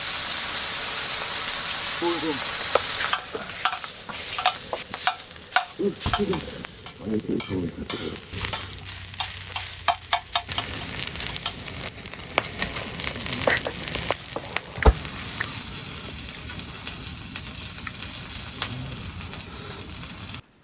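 Food sizzling in a hot frying pan, a steady hiss dotted with many small crackles and pops, the sharpest pop about three-quarters of the way through.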